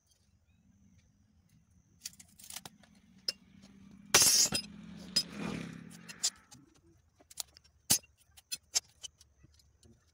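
Steel flat bar clinking and clanking against a hand-operated bending jig as it is handled and worked, with one loud metallic clang about four seconds in and scattered light clinks after. A faint low hum sits underneath through the middle.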